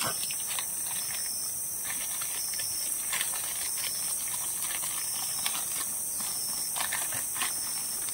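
Footsteps on a forest trail: irregular light knocks and crunches of steps, over a steady high-pitched hiss.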